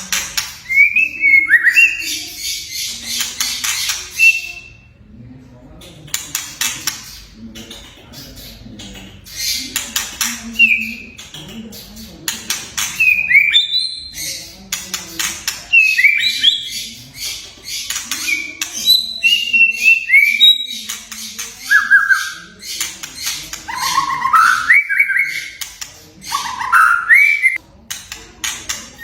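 White-rumped shama (murai batu) singing: short clear whistled notes, many sliding up or down, mixed with fast dry rattling chatter.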